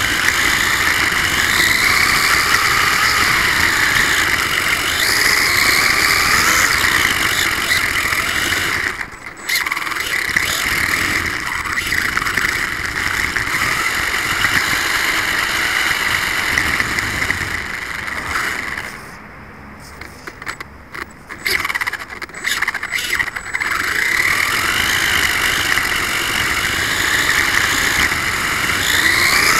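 Losi 1/24-scale RC car's brushless motor and drivetrain heard from an onboard camera: a high whine that rises and falls with the throttle over a steady rough noise from the road surface. The sound drops away briefly about nine seconds in, and again for a couple of seconds past the middle before coming back in short bursts.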